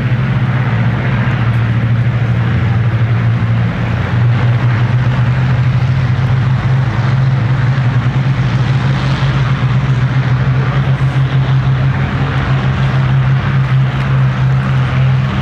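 Piston aero engines of a vintage aircraft taxiing on the airfield, a loud, steady low drone.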